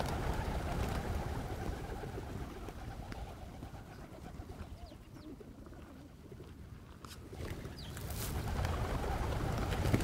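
A large flock of pigeons cooing together in a dense, overlapping murmur. It dies down in the middle and swells again after about seven seconds.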